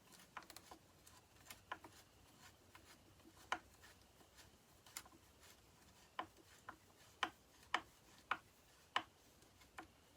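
Irregular sharp clicks and taps of small metal parts being handled, about a dozen over the stretch, with the loudest near the middle and in the later part.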